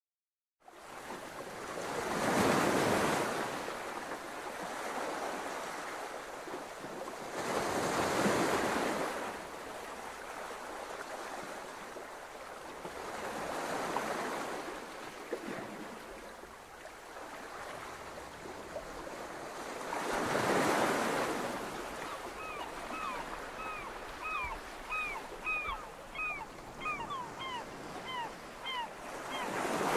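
Ocean waves washing onto a sandy beach, each wave swelling and fading about every six seconds. In the last several seconds a series of short high chirps comes in over the surf.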